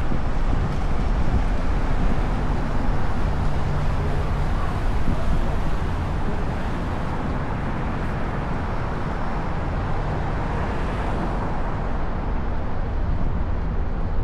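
Steady rush of wind on the camera microphone and rumble of motor traffic while riding a fixed-gear bicycle through city streets, with one swell in the noise about eleven seconds in.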